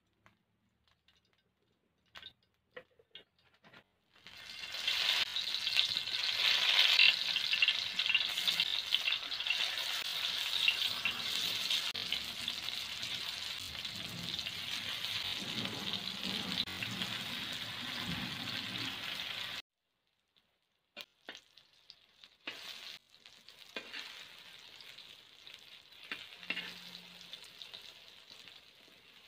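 Spice-coated whole brinjals sizzling and crackling in hot oil in an iron kadai as they are laid in. The frying starts suddenly about four seconds in after a few faint clicks, runs loud and dense, cuts off abruptly about two-thirds of the way through, then returns quieter with scattered clicks and knocks of a metal spatula against the pan.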